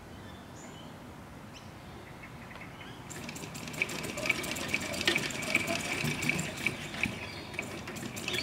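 1902 New Hudson motorcycle being pedalled on its stand to start it: the drive and spinning rear wheel make a fast, irregular clicking and rattling that sets in about three seconds in and grows louder.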